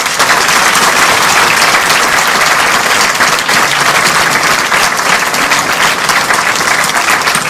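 Theatre audience applauding: dense, steady clapping from many hands, with the performers on stage clapping along.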